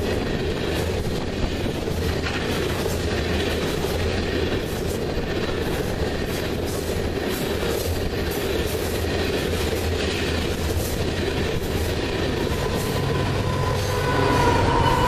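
Freight train of tank cars rolling past close by: a steady rumble with wheels clicking over the rail joints. About fourteen seconds in, a locomotive at the tail of the train passes, the sound swells, and a high steady tone comes in.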